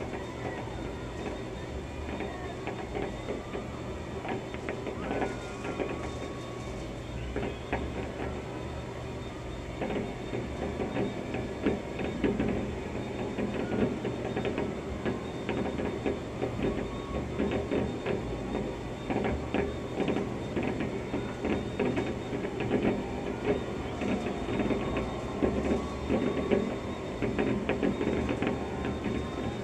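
Fireworks going off in a rapid string of pops and crackles, muffled through an office window pane. The pops grow denser and louder about a third of the way in, over a steady hum.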